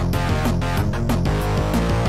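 Amiga tracker-module music from a 1992 BBS intro: sampled drums in a steady beat over a bass line and melodic instrument samples, the drum hits thinning out in the second half as the pattern changes.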